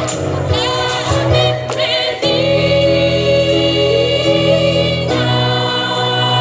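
Gospel choir singing with accompaniment: a few quick sung phrases, then a long held chord from about two seconds in, changing to another sustained chord near the end.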